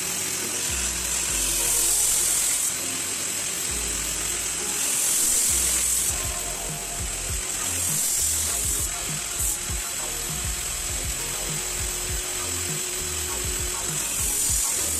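Angle grinder with a cut-off disc, mounted in a chop-saw stand, cutting through 40×20 steel profile tube: a steady high whine that swells louder several times as the disc bites into the metal. Background music runs underneath.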